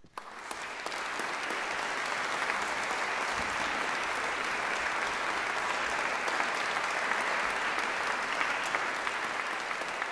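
Audience applauding, the clapping breaking out suddenly and building over the first second, then steady.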